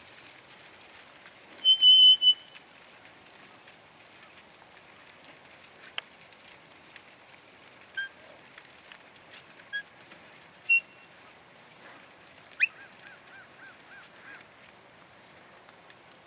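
High whistled calls: a loud, steady whistle about two seconds in, then single short peeps, and near the end a quick upward sweep followed by a rapid run of short notes.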